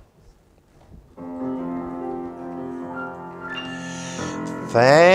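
A keyboard starts playing the introduction to a congregational chorus, steady held chords entering about a second in. Near the end, singing voices come in over it.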